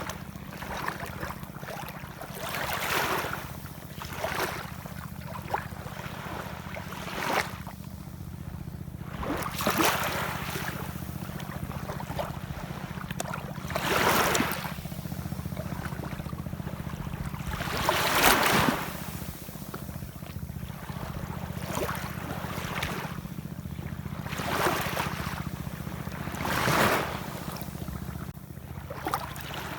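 Ocean waves washing in, a surge of surf every few seconds with some breaking louder than others, over a steady low rumble.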